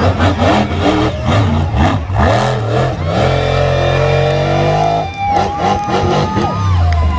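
Monster truck engine revving in short bursts, then held at high revs with a high steady whine for a few seconds, falling off near the end.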